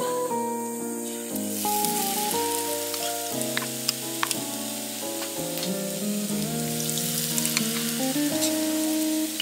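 Battered shishito peppers deep-frying in oil in a metal mess tin: a steady sizzle with scattered sharp pops, starting about a second and a half in, under background music.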